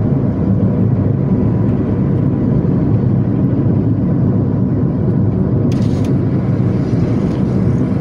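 Steady engine and tyre rumble heard inside the cabin of a moving car, with a brief faint hiss about six seconds in.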